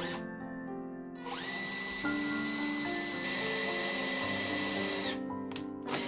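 Cordless drill running steadily as it bores through a clamped block of wood, a high whine starting about a second in and stopping near the end, with a brief burst of drilling just after. Background music plays throughout.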